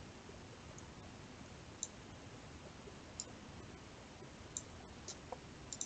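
Computer mouse clicking: about six single, sharp clicks spaced a second or so apart, over a faint steady hiss.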